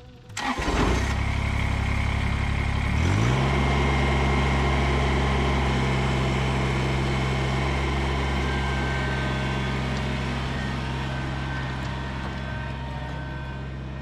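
Kubota compact tractor's three-cylinder diesel cranked by the starter and catching within about a second, then running at idle. About three seconds in the engine speeds up to a steady run, fading slowly as the tractor drives away.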